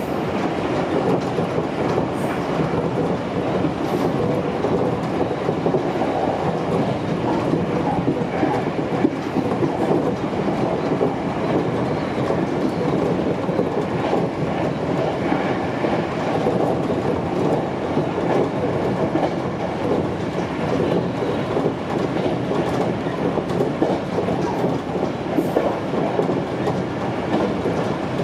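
Sanyo Electric Railway 5000 series electric train running at speed, heard from inside the driver's cab: a steady rumble of wheels on rail with a few faint clicks over rail joints.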